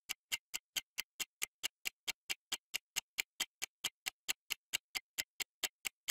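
Quiz countdown timer's ticking sound effect: sharp, even clock-like ticks, about four to five a second.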